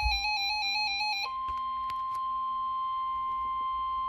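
Weather radio sounding an alert. A rapid two-pitch warbling tone stops about a second in, and a steady single high tone takes over: the NOAA Weather Radio warning alarm tone that comes before a new severe thunderstorm warning is read.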